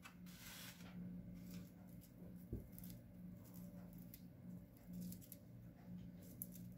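Faint rustling as dry, papery gladiolus corms are handled in the fingers, with one soft tap about two and a half seconds in, over a low steady hum.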